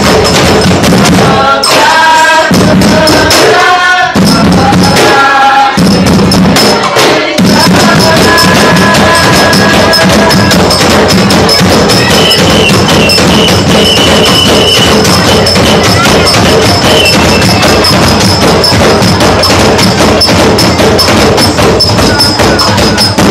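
Live group percussion playing a fast, dense rhythm on drums and hand percussion. Several voices sing together over it for the first few seconds.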